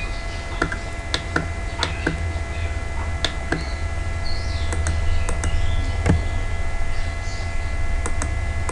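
Irregular clicks of a computer keyboard and mouse over a steady low hum.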